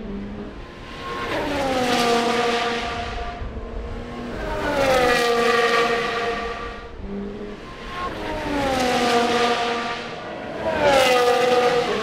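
Formula 1 cars with 1.6-litre turbocharged V6 engines passing at speed four times in a row. Each engine note drops sharply in pitch as the car goes by.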